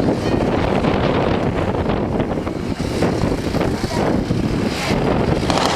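Strong wind buffeting the microphone, a dense low rumble, with military motorcycle engines running under it.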